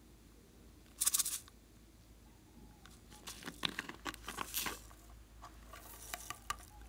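Small plastic bottle being handled and opened: a short rasp about a second in, then a run of plastic clicks and crackles as the top is worked off, and a few light taps as glitter is shaken out of it near the end.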